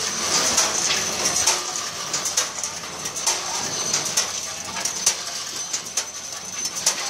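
Automatic pouch packing machine running, its mechanism clacking about once a second with each cycle over a steady high whine.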